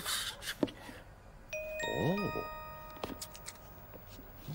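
Cartoon twinkle sound effect: bell-like chime notes at several pitches entering one after another, each ringing on for about a second, like a glockenspiel.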